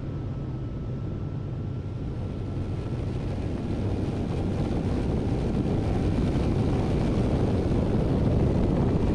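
Cessna Grand Caravan's single turboprop engine and propeller running with wind rush during an automatic landing, a steady rumble that grows louder over the second half.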